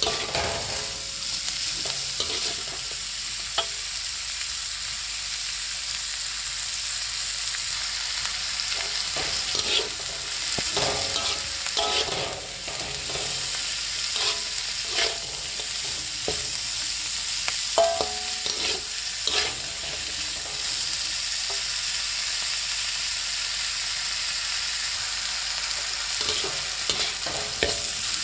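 Chopped kencur leaves, chilies, garlic and shallots sizzling in a wok while being stir-fried with a metal spatula. There is a steady sizzle, and the spatula scrapes and knocks against the pan at irregular moments.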